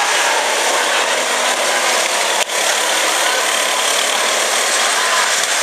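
Go-kart engines running as several karts drive round the track: a steady, dense engine noise, with a brief dip about two and a half seconds in.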